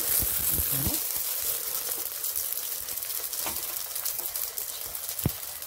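Oil sizzling steadily under a stuffed msemen flatbread frying in a pan, with a few soft knocks near the start as the dough is pressed down by hand.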